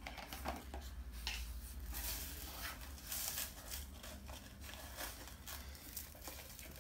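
Faint scattered rustling and light scraping of things being handled, over a low steady hum.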